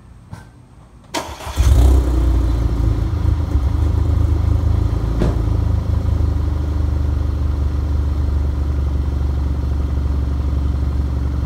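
2013 Audi A4's engine starting: a short crank about a second in, then it catches with a brief flare and settles into a steady idle.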